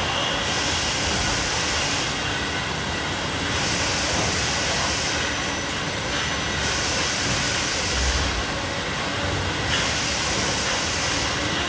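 Bottle depalletiser and bottling-line machinery running with a steady industrial noise, overlaid by repeated hissing bursts, each lasting about a second and a half and coming every three seconds or so.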